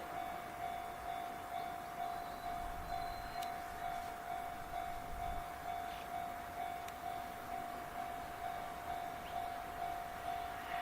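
Japanese level-crossing warning bell ringing in a steady, even repeat of about two strikes a second, signalling that a train is approaching.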